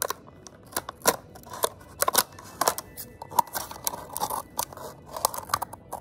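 Scissors cutting through the thin wall of a plastic drink bottle: a string of irregular sharp snips as the blades work around to cut an opening.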